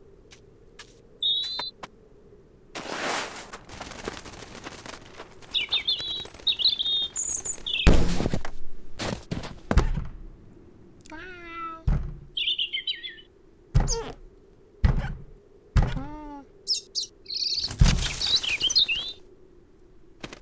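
Cartoon sound effects: a small bird chirping in short bursts, a series of dull thuds as a cat paws and bumps against a wooden shed door, and the cat's voice twice. Two spells of scuffling noise come a few seconds in and again near the end.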